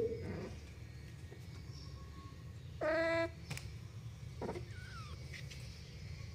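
A kitten mewing once, a short steady-pitched cry about three seconds in, over a low steady hum, with a couple of faint knocks just after.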